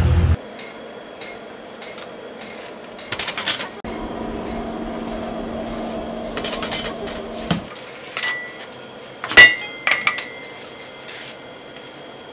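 Blacksmith forging a knife blade: scattered metallic clinks and knocks, a steady hum for a few seconds in the middle, then several ringing hammer strikes on the steel at the anvil.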